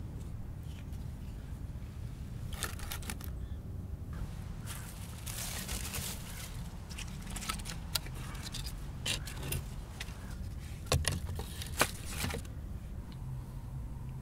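Dry sticks of firewood being picked up and handled, with irregular scrapes, cracks and sharp clicks of wood knocking on wood, the sharpest near the end. A low steady rumble runs underneath.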